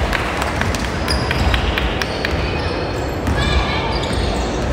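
Basketball bouncing on a hardwood gym floor in repeated thuds, with sneakers squeaking about three and a half seconds in and voices of players and spectators underneath.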